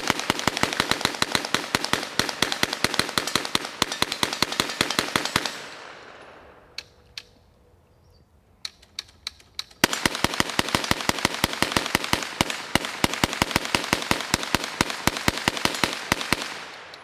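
Tippmann TG-900 hand-cranked 9mm Gatling gun firing rapid strings of shots as the crank turns: a burst of about five seconds, a few single shots, then a second burst of about seven seconds.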